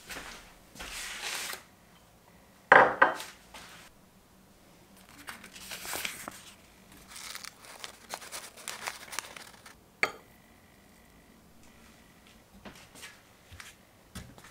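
Crinkling and rustling of a thin wrapper as chilli seeds are tipped into a small glass bowl, with a loud rustling burst about three seconds in. About ten seconds in a sharp clink of glass rings briefly, and a few small knocks follow.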